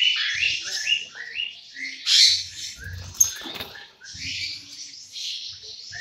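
Many caged lovebirds chattering and screeching together, with a quick run of short rising chirps in the first half and a louder harsh burst of calls about two seconds in.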